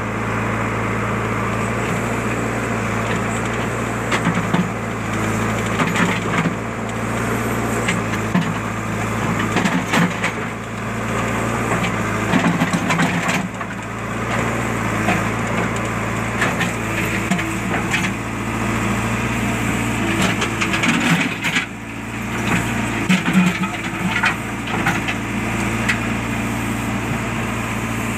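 JCB backhoe loader's diesel engine running steadily, with crunching, cracking and knocks from the bucket digging through soil.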